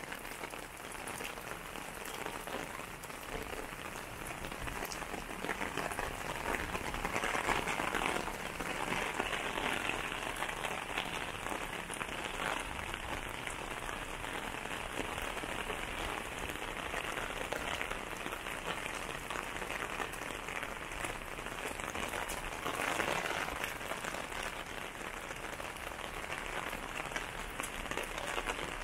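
Steady rain falling, with no speech or music. It grows a little louder for a moment about a quarter of the way in and again about three-quarters through.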